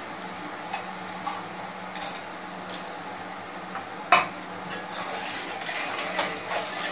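A spatula stirring milk in a metal pan, scraping and knocking against the pan with scattered sharp clicks, the loudest about four seconds in, over a steady low hum.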